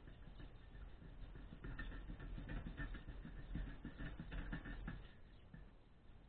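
A small piece of sheet metal being rubbed and scraped by hand in quick back-and-forth strokes. The strokes stop about five seconds in.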